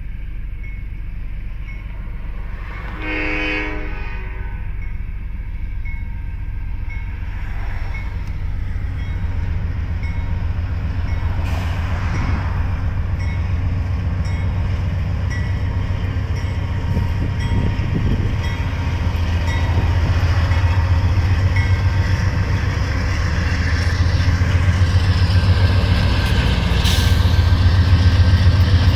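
Freight train's diesel locomotives approaching and passing a grade crossing: one short horn blast about three seconds in, the crossing bell dinging steadily, and a deep engine rumble that grows louder as the locomotives go by.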